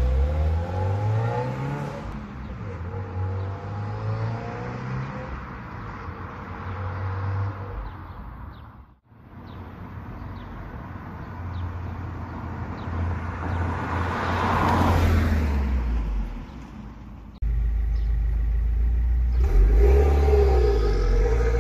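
2017 Subaru WRX's turbocharged FA20 flat-four pulling away and accelerating through the gears, first on the stock J-pipe, the engine note rising and stepping down at each shift, then swelling again and fading. After a sudden cut, the same engine with a MAPerformance J-pipe and stock cat-back idles with a louder, deeper note, then revs up as the car pulls away near the end.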